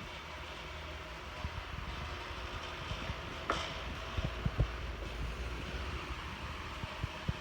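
1996 Super 12-inch oscillating table fan running: a steady rush of air with a faint thin hum, and gusts of its airflow buffeting the microphone. A single sharp click about three and a half seconds in.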